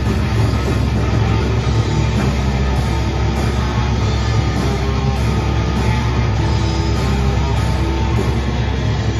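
Live black metal band playing loud: distorted electric guitar, bass guitar and drums in a dense, unbroken wall of sound.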